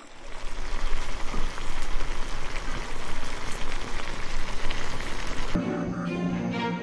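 Beef and onions sizzling in a pan, a steady crackling hiss. It stops abruptly about five and a half seconds in, and music with held tones begins.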